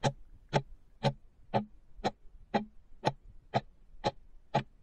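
Clock-ticking sound effect for a quiz countdown timer, counting down the time to answer: even, sharp ticks, about two a second.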